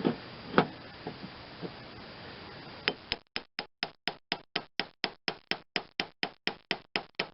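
A few scattered knocks, then a ratchet wrench clicking steadily, about four sharp clicks a second for the last few seconds.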